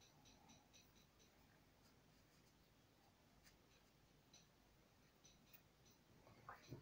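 Near silence: faint room tone with light, rapid ticking that stops about a second in, a few scattered soft clicks, and a brief soft thump near the end.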